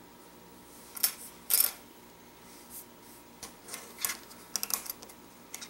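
Small plastic toy train track pieces being set down and tapped on a tabletop: a series of light, irregular clicks and taps.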